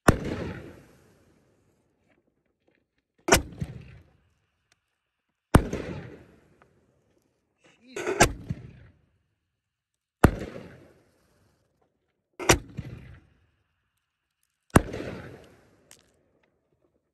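Camo Blast canister shell fireworks by Raccoon Fireworks going off: a string of sharp booms about every two seconds, each trailing off in a short rumbling echo, with a double bang about eight seconds in.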